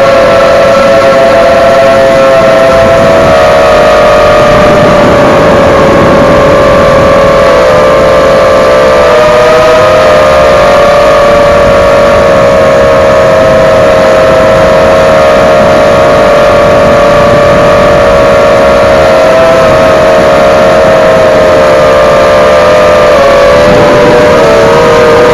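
Eachine Falcon 250 quadcopter's brushless motors and propellers whining in flight, loud. Several close tones drift up and down slightly together as the throttle changes, wavering more near the end.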